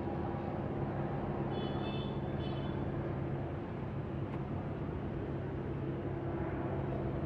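Cessna 172M Skyhawk's four-cylinder Lycoming piston engine and propeller droning steadily in flight.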